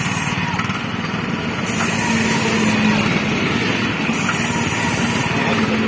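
Small engine of a cold paint road marking machine running steadily at a constant speed while the machine sprays a line.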